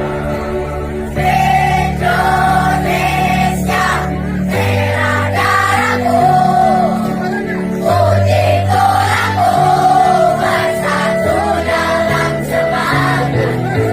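Student choir singing in unison over held chords from an electronic keyboard. The voices come in about a second in, after the keyboard introduction.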